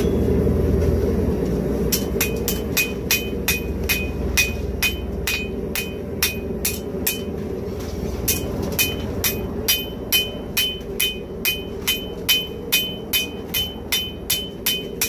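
Hand hammer striking red-hot spring steel on an anvil, forging a straight razor blank: a quick, regular run of ringing blows, about three a second, starting a couple of seconds in, with a short pause about halfway. A steady low rumble runs underneath.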